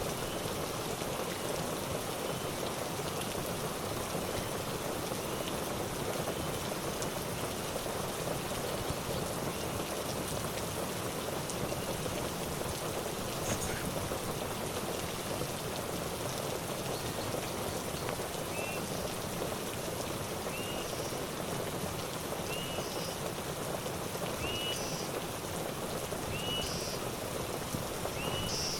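Steady rain falling, an even hiss of water. In the second half a short chirp repeats about every two seconds.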